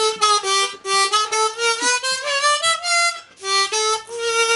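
Hohner Marine Band 1896 harmonica in G played in short held notes, switching back and forth between two neighbouring pitches, with a run of notes stepping upward about two seconds in. The harp has a new flat, airtight comb and reshaped reeds, so the hard-blown 4 blow does not choke and the 4 overblow sounds.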